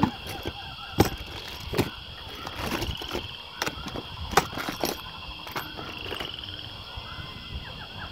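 Plastic electrical parts (circuit breakers, outlets and switches) clattering and knocking together as a hand sorts through a bin of them: a string of sharp, irregular clicks, the loudest about a second in. A steady high-pitched tone runs underneath.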